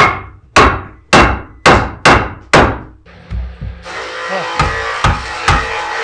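A hammer striking a wooden board six times, about one blow every half second, each blow ringing briefly. About four seconds in, background music comes in, with a few lighter knocks beneath it.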